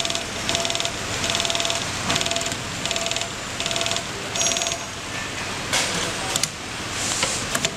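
Industrial CNC template sewing machine stitching in short runs: bursts of rapid needle strokes about half a second long, repeating roughly every 0.8 s. A few sharp clicks follow about six seconds in, then another run of stitching.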